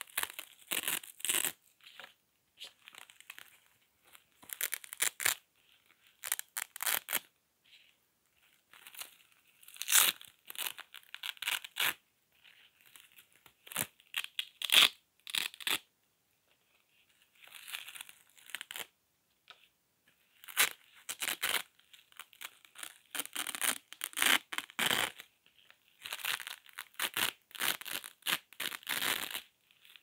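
Hook-and-loop (Velcro) tape and patches being peeled apart by hand: many short rasping rips at an uneven pace, with pauses of a second or so between runs.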